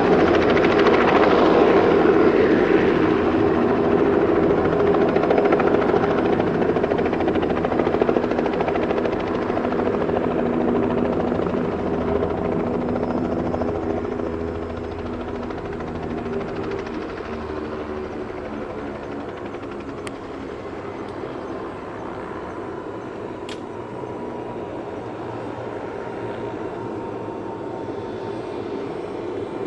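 Robinson R66 helicopter's Rolls-Royce RR300 turboshaft and main rotor running as it hovers and sets down on its skids. The sound is loud at first, drops in level about halfway through, and then runs steadily with the rotor still turning on the ground.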